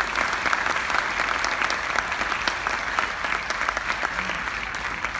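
Audience applauding: dense, steady clapping that thins slightly near the end.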